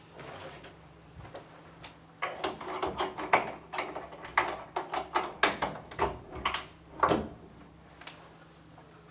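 A room door being locked from inside: a quick run of clicks and rattles at the lock, several a second, starting about two seconds in and lasting about five seconds, ending with a sharper knock.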